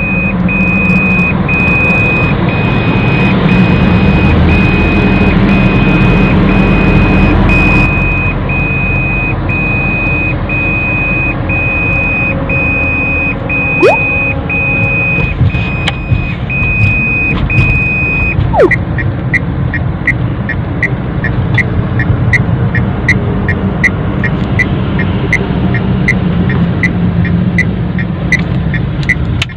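Car cabin at steady cruising speed in sixth gear: engine and road hum under a high seat-belt reminder chime, beeping evenly and steadily. About two-thirds of the way in the chime stops and short, quicker ticks of the turn-signal indicator take over, about two a second.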